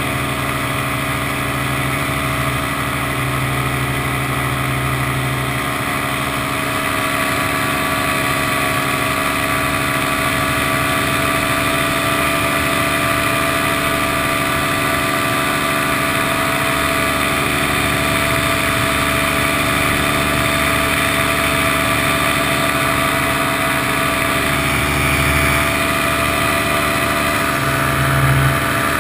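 Paramotor engine and propeller running steadily in flight, holding a near-constant pitch.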